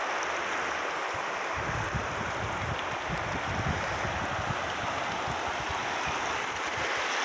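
Shallow river rushing steadily over stony riffles and rapids.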